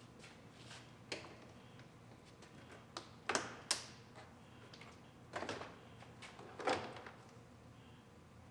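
Plastic door trim panel being pulled off a truck's front door, its retaining clips popping loose: a series of sharp snaps and knocks, the loudest about three and a half seconds in and another near seven seconds.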